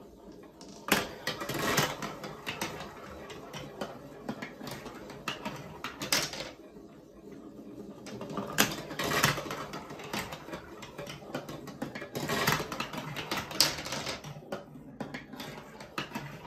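Glass marbles rolling and rattling through a plastic building-block marble run, clicking along the tubes and funnels and clacking against one another as they collect in the end tray. The clatter comes in bursts a few seconds apart, with a quieter rolling rattle in between.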